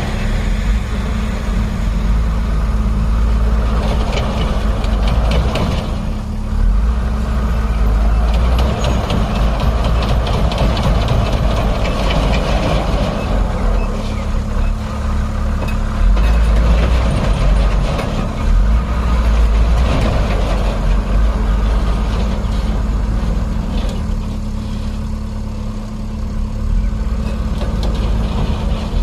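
Heavy diesel machinery engine running, its rumble rising and easing with load, with bouts of metallic clattering several times.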